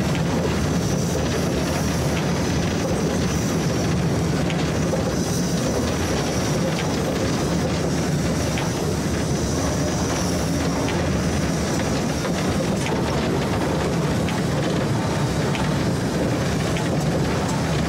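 Steam locomotive 434.2186 running light at low speed, heard from inside its cab: a steady rumble and rattle, with a few light clicks of the wheels over the track. A thin high hiss fades out after about twelve seconds.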